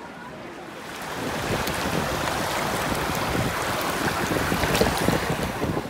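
Shallow water rushing and splashing over travertine, close to the microphone: a steady rushing noise with small splashes that grows louder about a second in.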